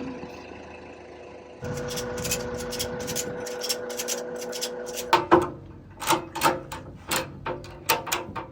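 An engine running steadily that picks up, growing louder, about a second and a half in; from about five seconds in, a string of irregular knocks and clicks sounds over it.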